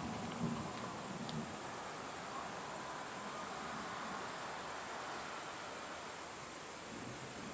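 Crickets chirring in one steady, unbroken high-pitched trill, with no thunder heard.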